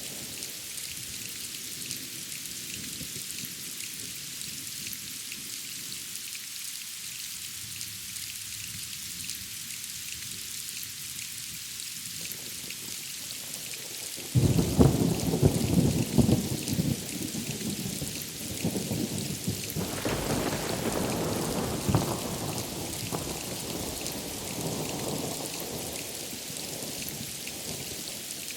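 Steady rain hiss, with a sudden clap of thunder about halfway through that rumbles on for several seconds, swells again, then fades back under the rain.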